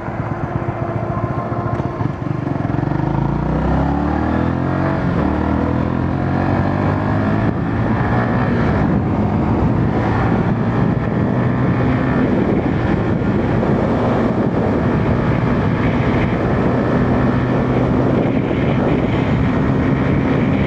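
Motorcycle engine pulling away, its pitch climbing over the first few seconds, then running steadily at speed with a constant rush of wind noise, heard through a mic inside the rider's helmet.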